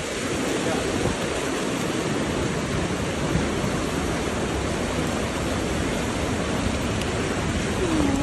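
Steady rushing noise of hurricane wind and rain, with no let-up. A short sliding tone sounds right at the end.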